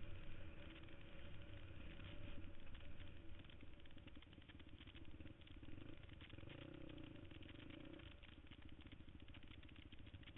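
KTM 250 XC-F dirt bike's single-cylinder four-stroke engine running at fairly low revs on a rocky trail, with the bike rattling over the rough ground. It is a little louder in the first few seconds.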